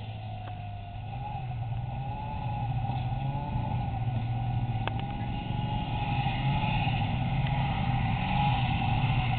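Snowmobile engine running at speed across grass, its whine wavering a little in pitch over a steady low hum. It grows steadily louder as the sled comes closer.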